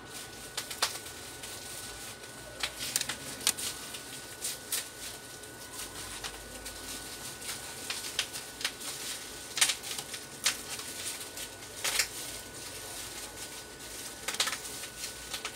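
Plastic display bezel of a Toshiba Satellite C660 laptop being fitted around the screen, with irregular sharp clicks and snaps as it is pressed into place; the loudest clicks come about two-thirds of the way in and near the end.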